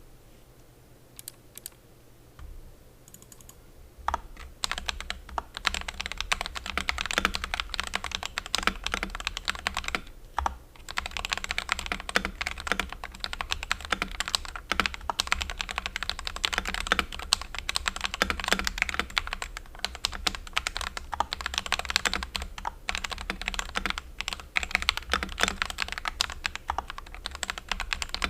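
Fast typing on an FL CMMK 870 mechanical keyboard with lubed Akko Radiant Red linear switches and thin ABS keycaps, a clacky but clean keystroke sound. A few scattered keystrokes come first, then continuous rapid typing with a brief pause about ten seconds in.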